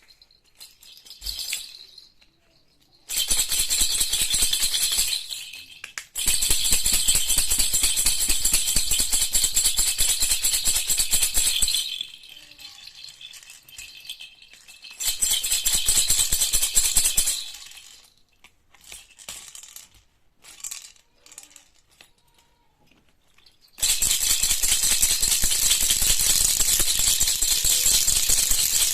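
Baby rattle (jhunjhuna) shaken in bouts of fast, continuous rattling, with a few lone shakes and short pauses between the bouts.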